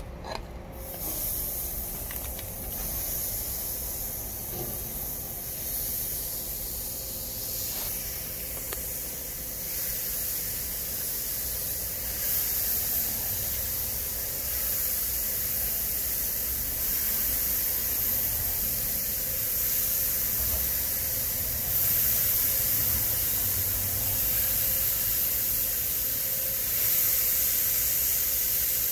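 Marinated pork skewers sizzling on a hot gas grill's cast-iron grates. The hiss starts about a second in and grows steadily louder as more skewers are laid on.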